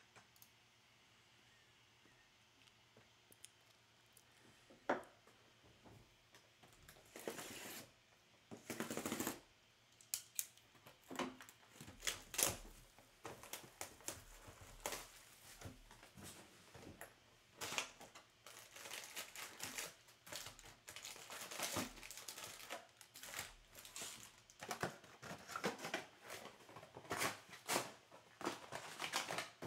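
Sealed trading card boxes and packs being opened by hand: plastic wrap and packs crinkling and tearing in short bursts, with clicks of cardboard and cards being handled. It starts with a sharp click about five seconds in and keeps going in a steady run.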